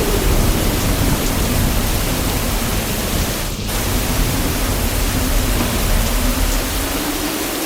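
Heavy rain falling in a steady hiss, with a low thunder rumble dying away over the first few seconds. The sound dips briefly about halfway.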